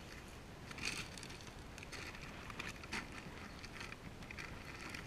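Low wind rumble on the microphone, with a few short rustling sounds about a second apart.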